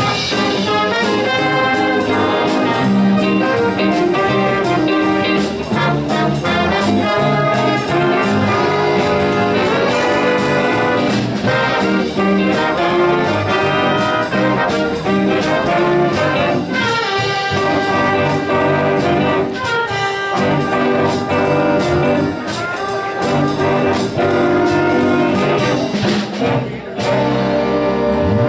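High school jazz big band playing a full-ensemble passage, brass and saxophones over guitar, bass and drums. The band drops out briefly near the end and comes back in.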